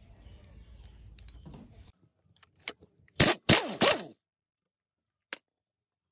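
Impact wrench fired in three short bursts, about three seconds in, on the nut of a gear in the timing case of an R190 single-cylinder diesel, the pitch dropping as it runs down after each one. Faint scraping of tools and parts comes before it, and one sharp click follows near the end.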